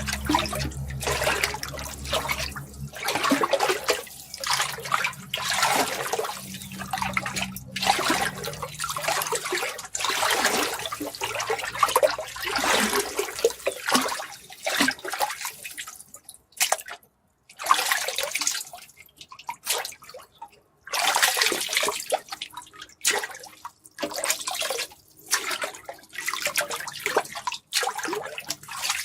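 Water splashing and pouring in irregular surges, with a few short pauses between them.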